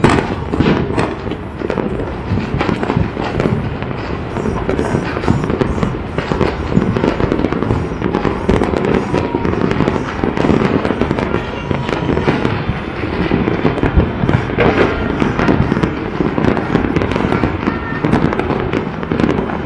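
New Year fireworks and firecrackers going off all over the city: a dense, unbroken crackle of many overlapping bangs and pops.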